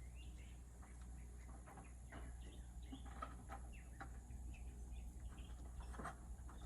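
Faint birds chirping, short scattered calls throughout, over a low steady rumble.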